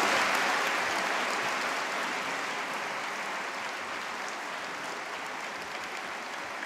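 A large audience applauding, a dense sustained clapping that slowly dies down.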